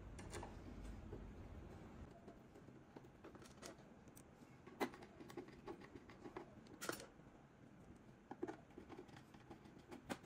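Small screwdriver fitting screws into the metal rear panel of a streamer-DAC chassis: faint, scattered clicks and ticks, with a sharper click about five seconds in and another about seven seconds in.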